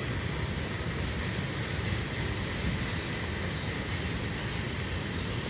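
Freight train cars rolling past, a steady rumble of wheels on rail that doesn't change.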